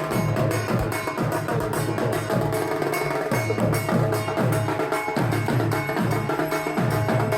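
Dhak drums being played at speed: a dense run of sharp stick strokes over deep booming strokes, about two a second, each dropping in pitch, with a steady metallic ringing over them.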